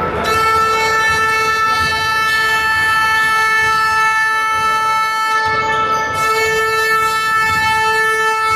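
A loud, steady horn tone held without pause for many seconds; its lowest note drops out briefly a few times.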